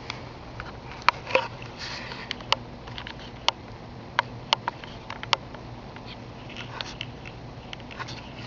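A cat snoring: slow, noisy breaths a few seconds apart over a steady low hum, with about a dozen sharp clicks scattered through them.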